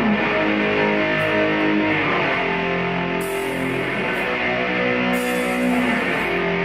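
Heavy metal band playing live through a concert PA: distorted electric guitars hold long chords over bass and drums, with a few cymbal crashes about two seconds apart.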